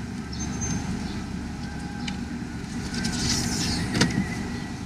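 Car engine idling with the driver's window open: a steady low rumble, a brief hiss about three seconds in, and a sharp knock about four seconds in.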